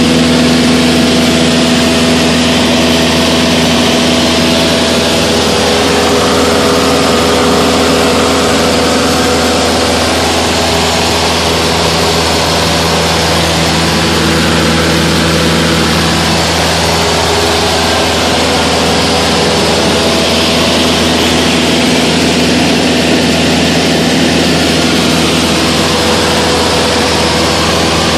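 Cessna 152's four-cylinder Lycoming O-235 engine and propeller running steadily in flight, heard from inside the cabin, with a constant rush of air noise over the engine's hum. The engine tones fade a little partway through and then come back.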